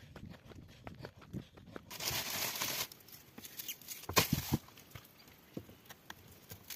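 Soft, steady footfalls on a dirt trail, then a brief rustle and a few sharp knocks of food being handled and cut on a cutting board.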